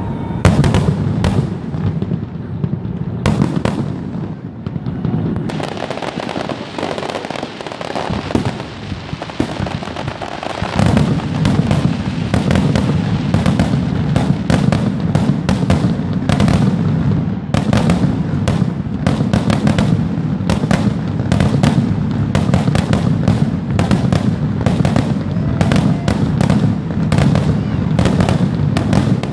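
Aerial fireworks display: a rapid barrage of shell bursts, bangs and crackle. The bursts come thicker about a third of the way in, merging into a continuous rumble of overlapping booms.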